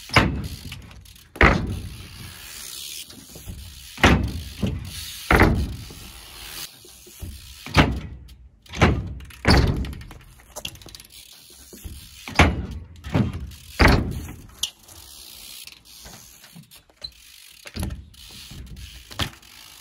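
BMX bike being ridden and tricked on skatepark ramps: over a dozen sharp thuds of the wheels landing and hitting the ramps, at uneven intervals, with mechanical clicking and rattling from the bike in between.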